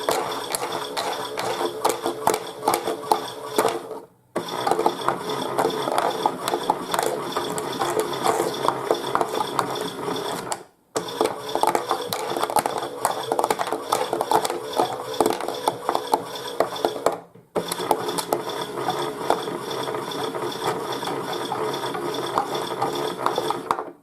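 Chad Valley toy washing machine's motor and gears running its wash tumble with a steady whirring rattle. The drum stops briefly three times, about 4, 11 and 17 seconds in, in the machine's timed tumble-and-pause action, then the motor cuts out at the end.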